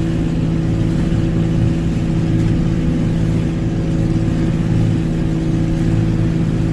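Engine of a Philippine outrigger boat (bangka) running steadily under way, a loud, even drone whose pitch does not change.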